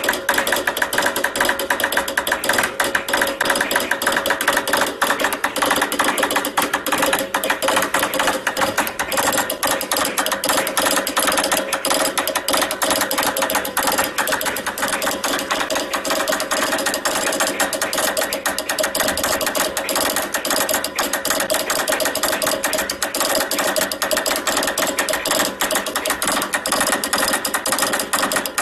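Morse code sent fast on a telegraph key: a steady stream of rapid mechanical clicks.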